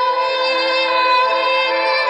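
Instrumental music of long held notes, with a lower line that moves slowly from note to note.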